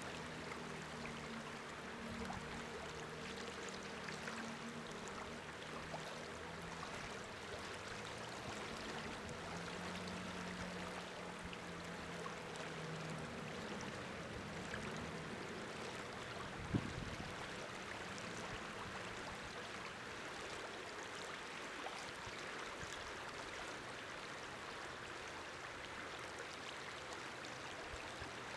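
Steady rushing of a flowing stream, with a single brief low thump about seventeen seconds in.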